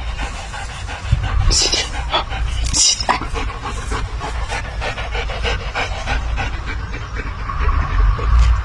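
A dog panting in quick, repeated breaths, with a couple of louder hissing breaths in the first few seconds.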